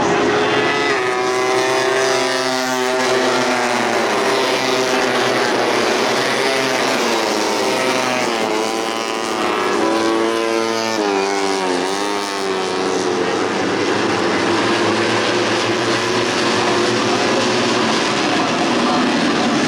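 Several tuned 150cc four-stroke underbone racing motorcycles running hard, their engine notes rising and falling through gear changes, with bikes sweeping past and dropping in pitch about ten to twelve seconds in.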